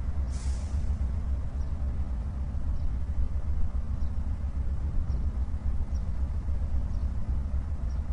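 Diesel locomotive engine running with a deep, steady rumble, with a short hiss just after the start and faint light ticks about once a second.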